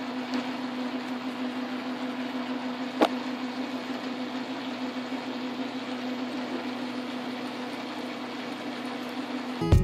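Metal lathe running at a slowed spindle speed with a steady motor hum while a 1/2 inch twist drill in the tailstock chuck cuts into the metal workpiece. One sharp click about three seconds in.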